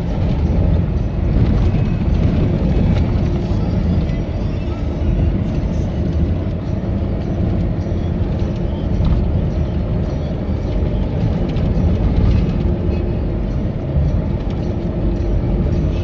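Steady low rumble of a vehicle driving along a rough country road, heard from inside the cabin: engine and tyre noise.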